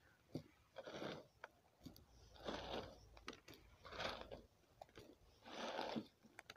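Handfuls of topsoil and washed-gravel mix scooped from a tray and dropped into a fabric pot: four short, faint gritty rustles, about one every second and a half, with small ticks of grit between.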